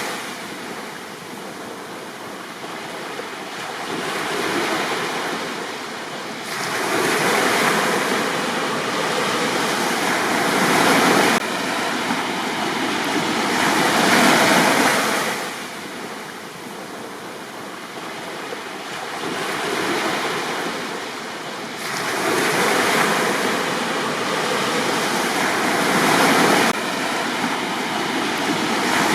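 Sea waves breaking and washing up a beach, the surf swelling and falling away every few seconds.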